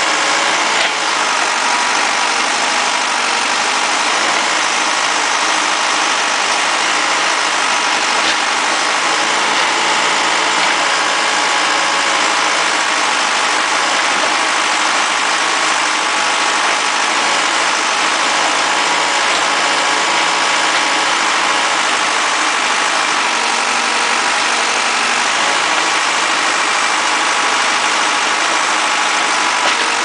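Case 580 Super L backhoe's diesel engine running steadily while the machine digs a trench.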